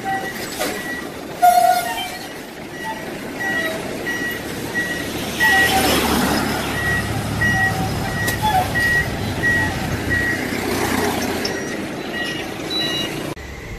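Trucks driving past on a road, their engines and tyres swelling as they go by, with a short horn toot about a second and a half in. Through the middle a high electronic beep repeats about one and a half times a second, like a truck's warning beeper.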